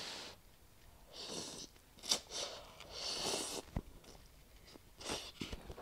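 A person slurping spicy instant noodles off a fork and chewing: two hissing slurps, about a second and three seconds in, with a few short mouth and fork clicks between.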